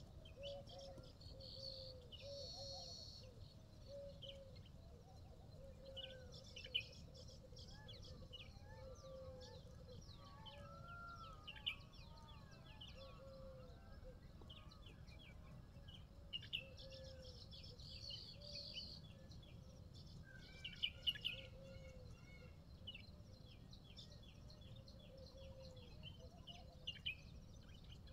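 Faint chorus of small birds chirping and twittering, with a short low call repeating every second or two, over a low steady background rumble.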